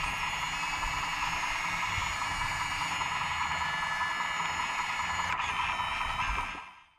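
Hydraulic pump of a radio-controlled model excavator whining steadily while its hydraulic tool pushes a steel rod into a small hole in the ground, with low rumbling and a few knocks; the sound fades out near the end.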